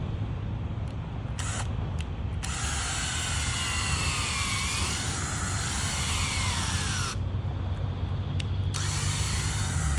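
Power tool motor running in spells that start and stop abruptly, the longest about five seconds, its whine sliding down and up in pitch as the speed changes, over a steady low hum.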